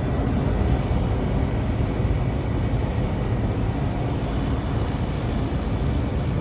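Steady low mechanical drone of running HVAC equipment, with no starts or stops.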